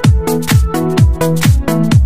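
Electronic dance music: a kick drum on every beat, about two a second, under held synth chords.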